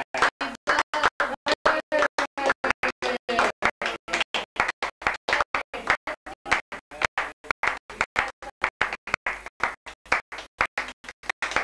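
A group of people singing and clapping for a birthday, the whole sound chopped into short pieces by rapid, regular dropouts about five times a second.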